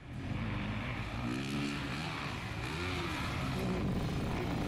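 Motor vehicles running at speed over desert ground: the camera car and the heavy truck. Their engine note rises and falls a couple of times over a steady rush of tyre and wind noise.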